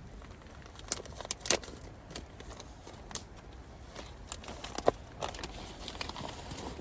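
Wood fire crackling, with irregular sharp pops of burning branches; the loudest pop comes a little before five seconds in.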